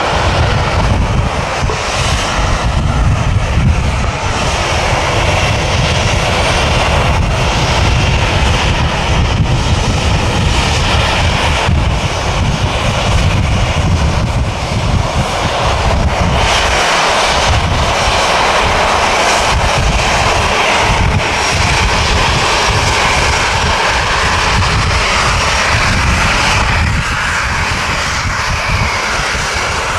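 Loud, steady roar of an airliner's engines at high power during takeoff.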